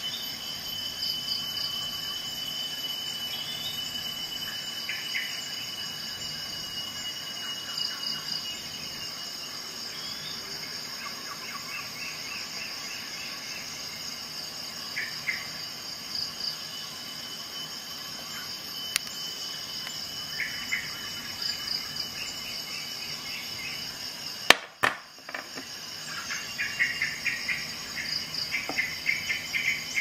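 Steady high-pitched trilling of an insect chorus, with short chirps every few seconds and a sharp click about 25 seconds in, after which the chirping comes faster.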